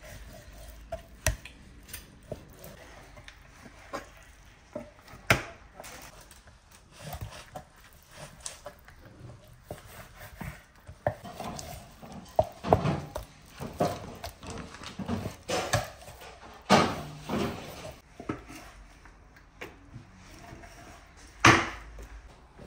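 Large kitchen knife slicing raw chicken breast on a wooden cutting board, with irregular sharp knocks of the blade against the board, a few much louder than the rest.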